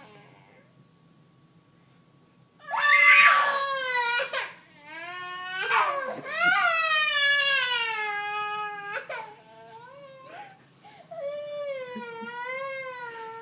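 A small child crying: after a quiet couple of seconds, a run of long, loud wailing cries, each sliding down in pitch.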